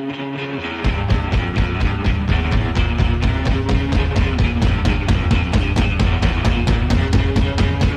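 Rock music: a guitar line, then about a second in the drums and bass come in with a steady, driving beat.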